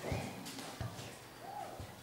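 Quiet classroom room sound with a few soft low thumps spread through it and a brief faint voice about three quarters of the way in.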